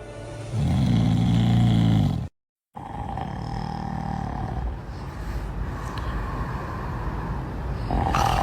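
Loud snoring: one long, heavy snore starting about half a second in, an abrupt cut to silence, then a weaker second snore, followed by a steadier hum.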